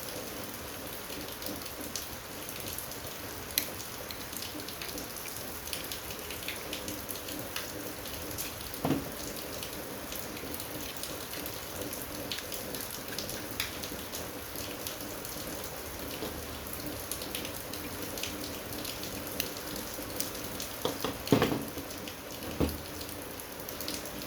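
A steady hiss under scattered clicks and a few knocks of an air conditioner's parts being pried and pulled apart, with the loudest knocks near the end.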